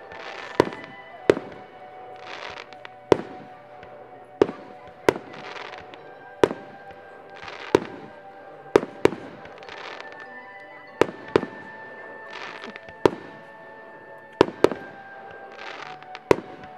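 Aerial fireworks shells bursting: sharp bangs about once a second, some in quick pairs, with short hissing noises in between. Music with long held notes plays underneath.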